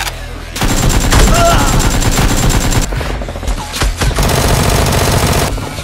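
Automatic gunfire sound effects dubbed over a Nerf blaster fight, in two long rapid bursts: one starting about half a second in, the other near the end.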